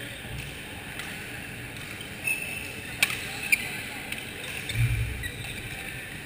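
Badminton rally on an indoor court: a couple of sharp racket-on-shuttlecock hits about three seconds in, short shoe squeaks on the court mat, and a dull thump of footfalls a little later, over a steady hall hum.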